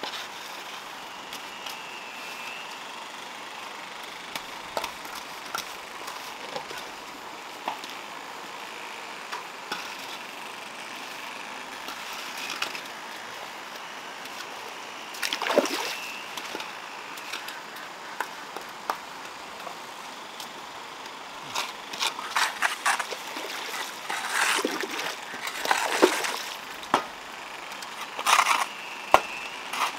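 Water splashing and sloshing as hands and a bucket work in a shallow concrete pond: scattered small splashes, one louder splash about halfway, and a run of louder splashes in the last third.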